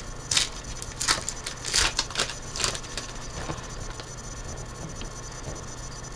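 Trading-card pack wrapper crinkling and tearing open in a handful of sharp rustles over the first three seconds, then the cards being handled more quietly.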